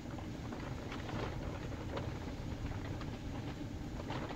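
Steady low rumble with scattered light ticks, heard from inside an insulated ice-fishing tent: wind and blowing snow hitting the tent walls.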